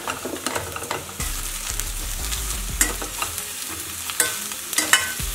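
Ridge gourd chunks frying in hot oil in a stainless steel pan, a steady sizzle that grows louder about a second in as the pieces go in. A spatula stirs them, with scattered clinks and scrapes against the pan.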